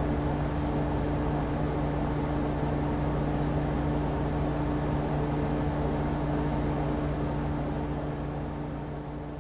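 Air conditioner running: a steady low hum over an even whooshing drone, fading out over the last second or two.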